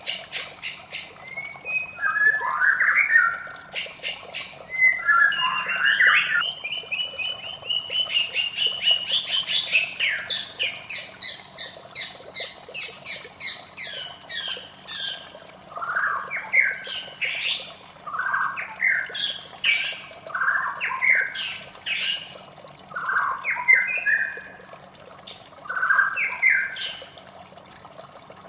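White-rumped shama singing: varied whistled and rasping phrases, a run of fast repeated notes in the middle, then short phrases about every second and a half, stopping shortly before the end. Steady running water underneath.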